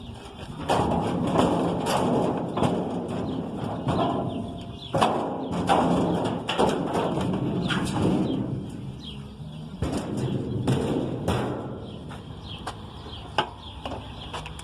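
Irregular knocks, clatter and scraping from a Whirlpool top-load washing machine's sheet-metal cabinet and parts being handled during disassembly. The knocking is denser through the first half, then thins to a few sharp single knocks.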